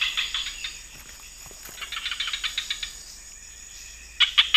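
Swamp insects calling over a steady high drone, with bursts of rapid chirping, and a little after four seconds three loud sharp calls that drop in pitch.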